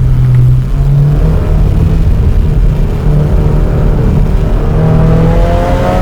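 Subaru WRX's 2.0-litre turbocharged boxer four running under acceleration, heard from inside the car. The low engine note holds fairly steady with a few small jumps in pitch, and in the last second and a half a higher tone rises steadily as the car pulls.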